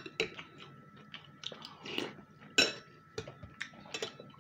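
Close-up chewing of pelmeni dumplings in broth, a quick run of wet mouth smacks and clicks, with one louder smack a little past halfway.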